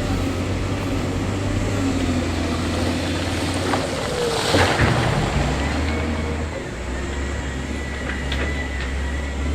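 Heavy diesel construction machinery running steadily, the engine note dropping lower about halfway through, with a louder burst of rushing noise about four and a half seconds in.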